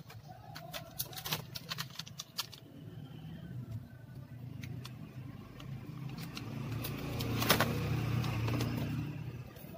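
Sharp plastic clicks and taps as an Asus laptop's keyboard top case is handled and pressed down onto the base, most of them in the first couple of seconds and one loud click about three quarters through. Under them a low rumble builds and is loudest near the end.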